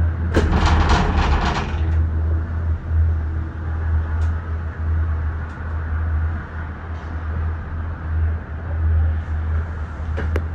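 Disney Skyliner gondola cabin in flight: a steady low rumble, with a quick rattling clatter for over a second near the start and a single click near the end.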